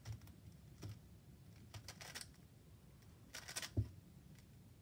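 Megaminx puzzle faces being turned through a short move sequence: a handful of faint plastic clicks and snaps as each face turns and settles.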